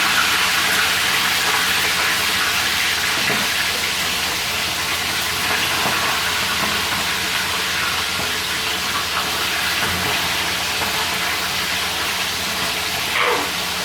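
Fish frying in hot oil in a kawali, a steady sizzle.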